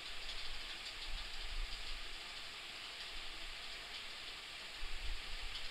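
Room tone: a steady low hiss with a faint low rumble.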